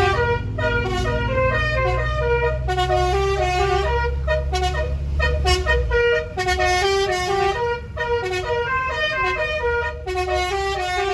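Telolet horn on an angkot minibus playing a tune: stacked trumpet-horn notes stepping up and down in short, repeated phrases. A low rumble sits underneath and stops about six seconds in.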